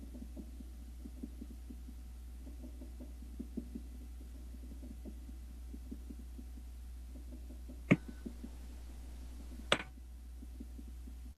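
Steady low hum with faint, irregular low thumps, and two sharp clicks about two seconds apart in the last few seconds.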